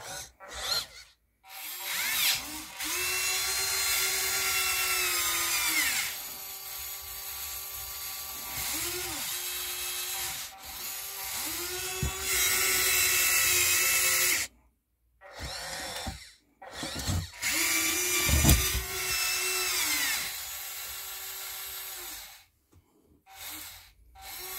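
Huina 1583 RC wheel loader's electric motors whining as the lift arm and bucket are worked, in about five separate runs of a few seconds each, with short pauses between them. Each run rises in pitch as the motor spins up and drops as it stops.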